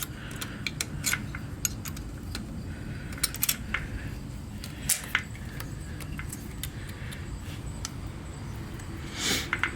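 Irregular light metallic clicks and taps of tools and hardware being handled while working a tight intake-manifold bolt, with a short rustle near the end.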